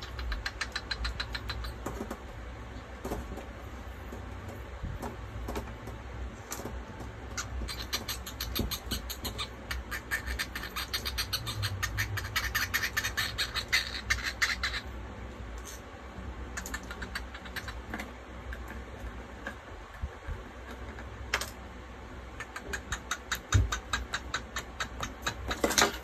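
Cockatiel tapping its beak rapidly against a mirror, in runs of quick clicks. The longest and loudest run falls in the middle. A steady low hum sits underneath.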